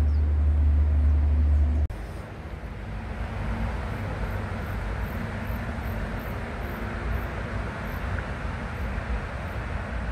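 Outdoor background noise: a loud steady low rumble that cuts off suddenly about two seconds in, then a steady hiss with faint high-pitched chirps about twice a second.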